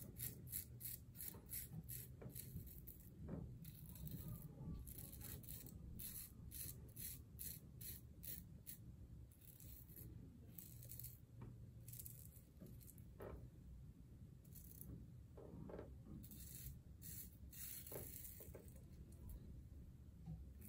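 Faint rasp of a safety razor's blade cutting through lathered beard stubble, in many short repeated strokes.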